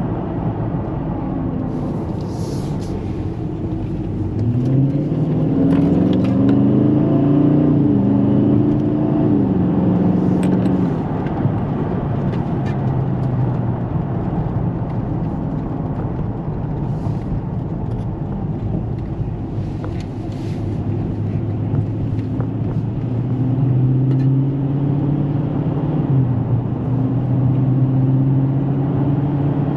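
Dodge Charger Scat Pack's 392 (6.4-litre HEMI V8) engine driving on a highway, heard from inside the cabin over steady road rumble. The revs climb about four seconds in and ease back, then pick up again near the end.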